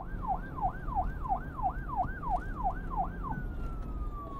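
Siren wailing in a fast yelp, about three rises and falls a second. A little past three seconds in it switches to one long, slowly falling tone, over a low steady rumble.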